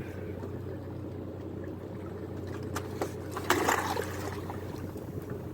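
Steady low hum of a fishing boat's machinery with water trickling, and a few sharp knocks and a splashy burst about three to four seconds in.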